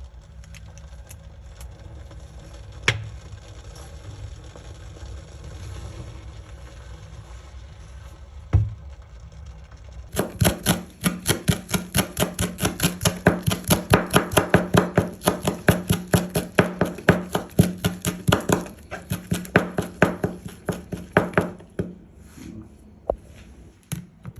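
Kitchen knife chopping on a cutting board in a fast, even run of about four strokes a second for roughly twelve seconds, then stopping. Before it there are two single knocks over a low steady hum.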